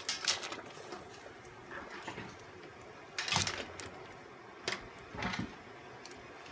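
Cleaned Dungeness crab pieces dropped into a pot of salted water at a rolling boil: a sharp knock and splash right at the start, then more splashes about three and five seconds in, over the low bubbling of the boil.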